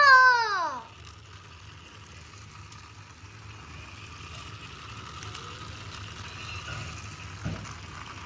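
A battery-powered light-up toy car's small electric motor whirring steadily as it drives around a flexible plastic track. In the first second a voice slides down in pitch, and a single light knock comes about seven and a half seconds in.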